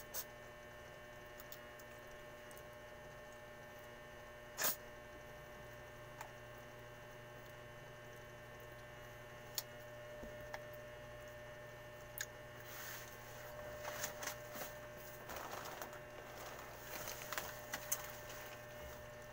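Steady low electrical hum with a few sharp clicks. From about two-thirds of the way in come bursts of rustling and light knocks as a person moves about and gets up from his seat.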